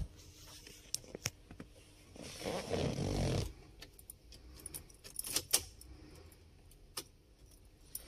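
Small metal parts clinking and jingling as they are handled, with scattered sharp clicks and a louder rustle of handling about two and a half seconds in.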